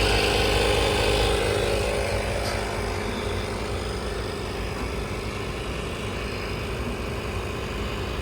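Portable 12 V tyre inflator running steadily as it pumps up a flat car tyre, a little louder for the first couple of seconds and then even.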